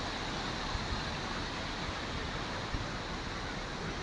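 Steady rushing of water pouring over a series of shallow rocky cascades.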